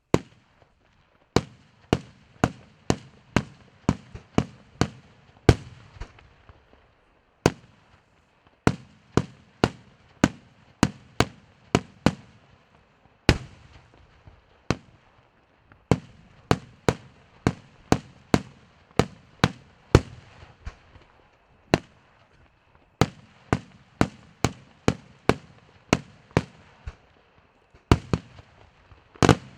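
Fireworks display: aerial shells bursting in a rapid series of sharp bangs, often two or three a second, with a few short pauses between volleys.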